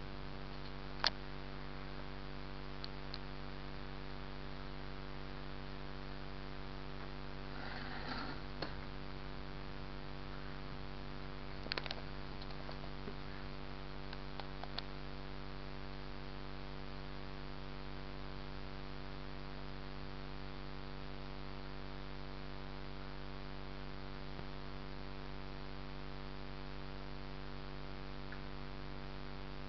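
Steady electrical hum made of several steady tones, with a sharp click about a second in and a few fainter clicks and rustles around 8, 12 and 15 seconds in.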